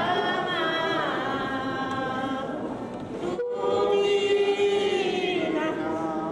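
A group of women singing a slow devotional hymn together in long held notes. The singing breaks off for a moment about halfway through, then goes on.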